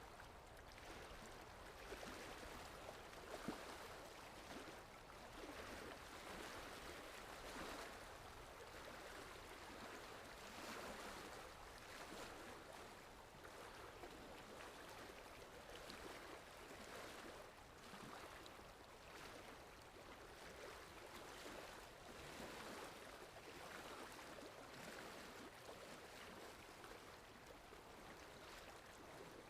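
Faint sea surf: a steady wash of small waves, swelling and easing every second or two.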